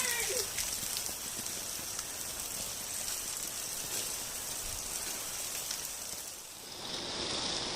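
Steady rain falling, an even hiss of drops; the sound dips briefly and changes in tone near the end.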